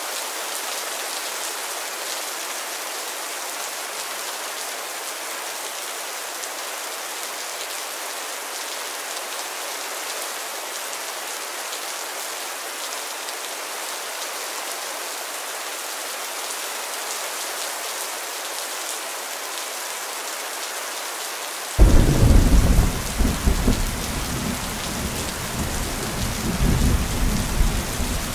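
Steady rain falling, an even hiss. About 22 seconds in, thunder breaks suddenly and loudly, then keeps rolling and swelling until the end.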